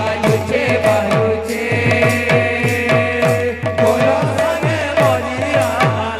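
Kirtan ensemble music: khol drums played in a fast rhythm, their bass strokes sliding down in pitch about three to four times a second, with manjira cymbals striking and a held melody line over them.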